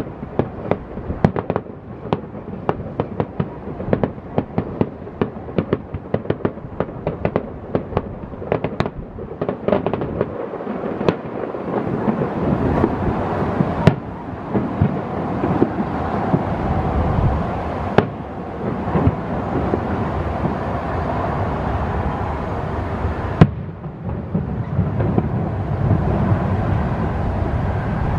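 Fireworks display going off: a rapid string of sharp pops and bangs for about the first ten seconds, then a denser, continuous crackle and rumble of bursts with a few louder single bangs.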